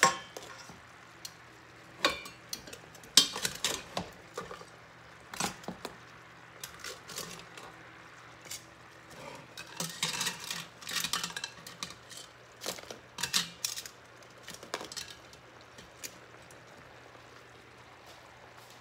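Metal tongs clinking and knocking against a stainless steel pan and a steel pot as whole crabs are lifted and set into the pan, in irregular clicks and clatters. A low steady hum runs underneath.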